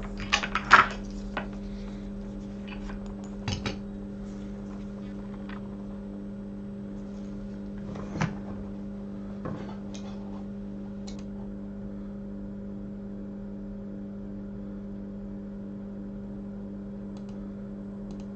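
Small metal tools clinking and tapping on a workbench: a quick cluster of clinks at the start, the loudest, then two more a few seconds in and single taps around the middle. A steady electrical hum runs underneath.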